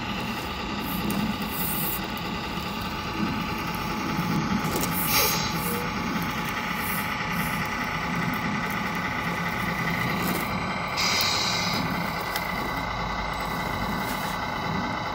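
Radio-controlled model truck and bulldozer running: a steady engine-like drone with a short hiss about two-thirds of the way through.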